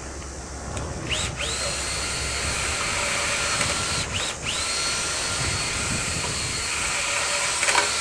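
Power drill spinning a rotary dryer-vent cleaning brush, a steady whine. Its pitch dips briefly about a second in and again about four seconds in, then climbs back. There is a short knock near the end.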